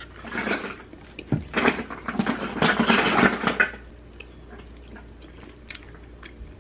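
Biting into a sandwich and chewing close to the microphone, with mouth noises and small clicks. There is a short burst in the first second, then a louder run of chewing from about one and a half to nearly four seconds in, and it quiets after that.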